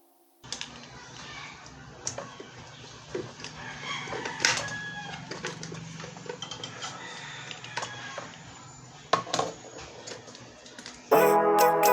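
Background noise with a faint low hum, scattered clicks and knocks and short animal-like calls, which may be chickens clucking. Music starts loudly near the end.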